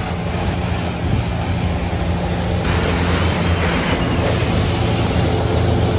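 Motorboat's engine running steadily at speed, a low drone, with water rushing and churning in the wake.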